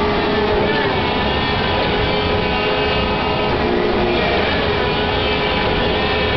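Motor and drive mechanism of a mechanical pirate-ship swing model running through its working cycle: a steady mechanical running noise with a high whine that fades at the start and returns about two and a half seconds in.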